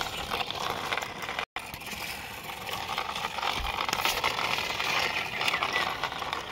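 Small toy truck driving over the ground, its wheels and mechanism rattling and scraping. The sound drops out for a moment about a second and a half in.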